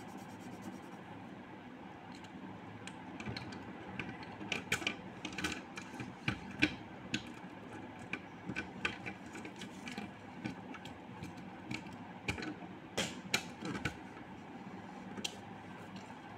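Felt-tip markers on paper laid on a wooden tabletop: an irregular run of light taps and ticks as short strokes are drawn and markers are handled and capped. The taps start a few seconds in, are busiest in the middle and thin out near the end.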